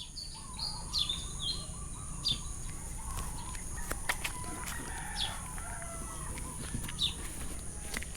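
Birds calling in the open air: short, sharp falling chirps repeated every second or two over other wavering birdsong, with a steady high-pitched whine underneath.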